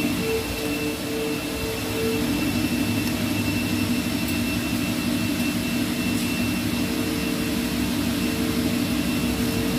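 Steady machine hum with several held tones at an even level, and a couple of faint clicks around the middle.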